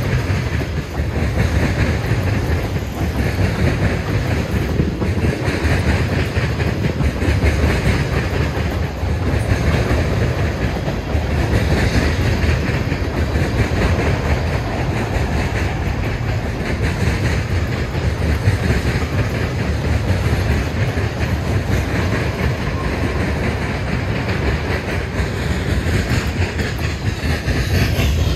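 Freight train of tank cars rolling past close by: a steady wheel-on-rail rumble with the clickety-clack of wheels passing over rail joints.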